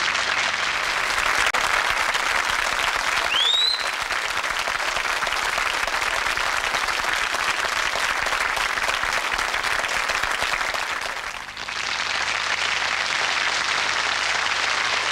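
Studio audience applauding, with a brief rising whistle about three and a half seconds in. The applause dips briefly near the end, then picks up again.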